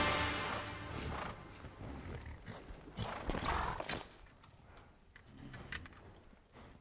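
Horses shifting and stamping their hooves, with one short horse call about three and a half seconds in; background music dies away in the first moment.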